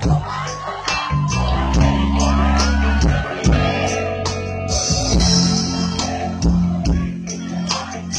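Rock band playing live through a concert PA, with a steady drum beat, bass and electric guitar.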